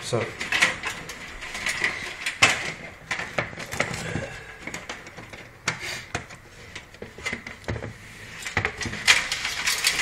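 Irregular plastic and metal clicks, knocks and rattles as the plastic front panel of a PC tower is pulled free of the steel case and its cables are unplugged.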